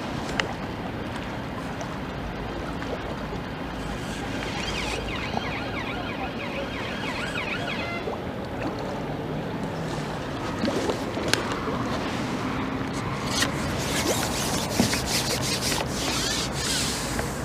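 Wind buffeting the microphone over a steady low rumble of outdoor noise, with a few sharp clicks in the second half.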